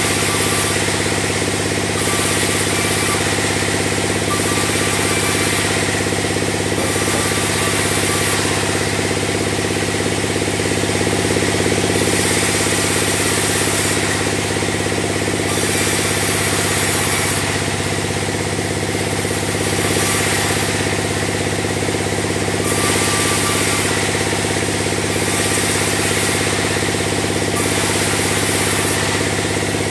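Sawmill bandsaw running steadily as timber is sawn into beams, with a constant low hum from its drive and a higher hiss that comes and goes every second or two.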